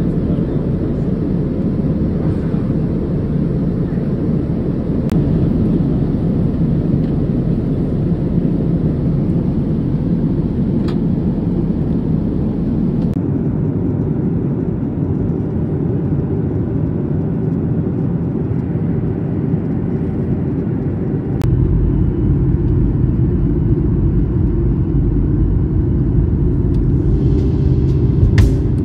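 Steady low rumble of a moving vehicle, getting louder and deeper about 21 seconds in.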